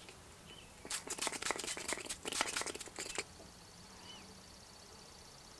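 Quick run of small clicks and rustles from makeup being handled, likely cosmetic cases being closed and opened and a lipstick put to the lips. The clicks fall from about a second in to just past three seconds, then the sound drops away to a faint steady high tone.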